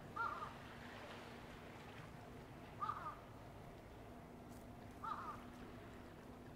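A gull calling three times, short arched calls about two and a half seconds apart, over a faint steady background hum.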